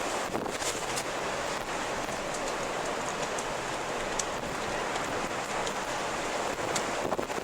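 Storm wind blowing in a steady rush, with scattered short ticks throughout.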